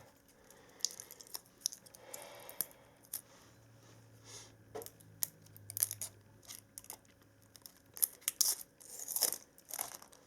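A laptop battery pack being stripped apart by hand: tearing and crinkling of its wrapping, with scattered sharp clicks and snaps. There is a busier burst of tearing near the end.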